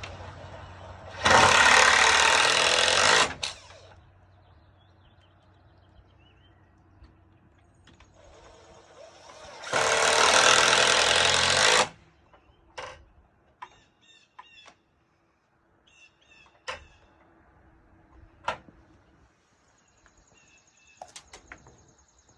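A power drill runs in two bursts of about two seconds each, driving fasteners for a door latch. Several light clicks and knocks follow in the second half.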